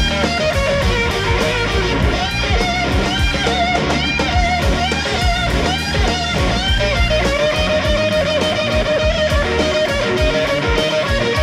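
Live blues-rock band: an electric guitar solo over bass and drums, a run of quick bent notes that settles into one long held note from about seven seconds in.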